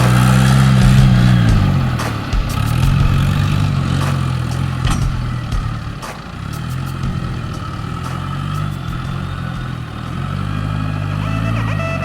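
Diesel engine of a small ST916F (ZL16F) wheel loader running under varying throttle: its pitch sags and climbs back about three times, with scattered clicks and knocks from the machine.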